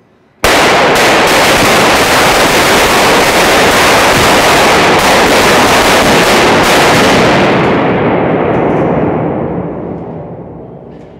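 Staged gunfire with bullet-hit spark pyrotechnics: a sudden, very loud, continuous barrage that starts abruptly about half a second in, holds for about seven seconds and then dies away.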